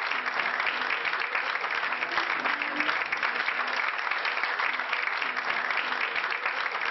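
Audience applauding: dense, steady clapping from a crowd after a joke's punchline.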